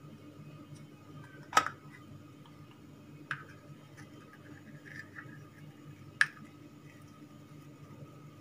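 Three short sharp clicks of a small plastic container being handled and set down on a stone counter while saffron threads are sprinkled from it, over a steady low hum.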